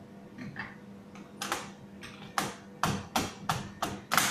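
Small hammer tapping a Cummins injector part on a workbench: a few light clicks of parts being handled, then, from about a second and a half in, about seven sharp knocks, roughly three a second.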